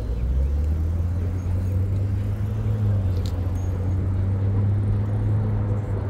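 A motor vehicle's engine passing close by: a low, steady hum that swells in at the start, holds, and fades out near the end.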